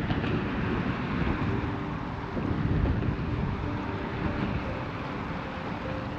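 Wind gusting across the microphone, with moving river water underneath.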